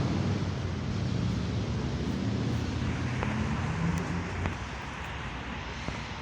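Bus engine running with a steady low hum; it eases off about four and a half seconds in, with a couple of faint clicks.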